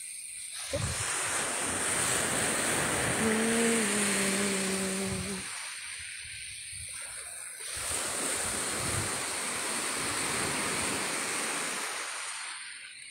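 Ocean surf breaking and washing up the beach, the noise swelling and easing with the waves. About three seconds in, a brief low steady tone sounds for around two seconds.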